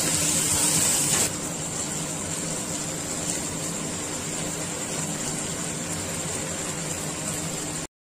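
Cabbage frying in oil in a nonstick pan: a steady sizzling hiss with a faint low hum beneath. It drops a little in level a little over a second in and cuts off suddenly near the end.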